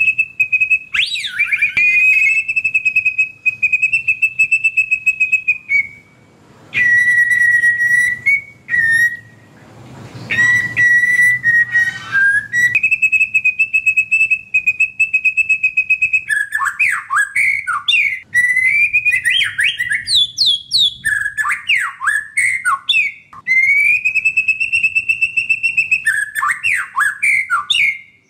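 White-rumped shama singing loudly: long rapid trills held on one high pitch for several seconds at a time, broken about halfway through by quick runs of varied sliding whistles.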